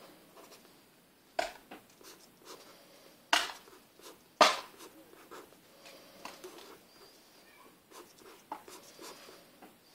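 Felt-tip marker writing on a sheet of paper: faint scratching strokes, with a few sharp ticks of the tip striking the page, three of them loudest between about one and four and a half seconds in.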